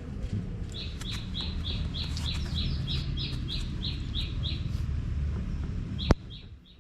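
A small bird repeating a short, high chirp about four times a second for several seconds, over a steady low rumble. A single sharp click near the end.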